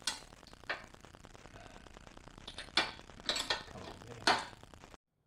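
Handling noise of a camera being moved: a handful of sharp clicks and light metallic clinks over a faint hiss, then the recording cuts off abruptly near the end.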